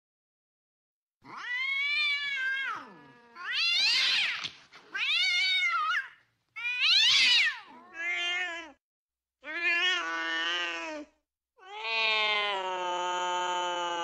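Domestic cats caterwauling as they mate: about seven long, pitched yowls, starting about a second in. Several rise and fall in pitch, and the last is held steady for over three seconds.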